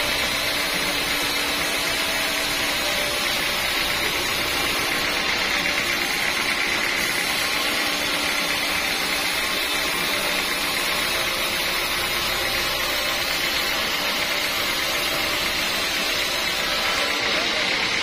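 Horizontal band sawmill sawing through a teak log, its blade and drive running steadily in one continuous, unbroken machine noise with a high, whining edge.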